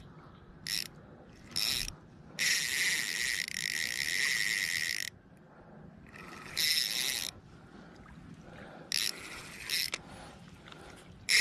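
A fishing reel's drag clicking rapidly in repeated bursts as a hooked catfish pulls line off against the light line; the longest run starts about two and a half seconds in and lasts nearly three seconds, with shorter bursts before and after.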